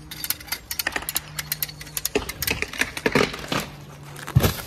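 Rotten walnut wood cracking and splitting in a rapid, irregular run of sharp cracks as the trunk is pulled over with a winch, ending in one heavy thump about four seconds in as the piece gives way.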